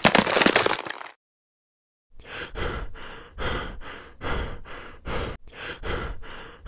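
A loud crash of a wall being smashed through, dying away about a second in. After a short silence, heavy rhythmic panting, about one and a half breaths a second.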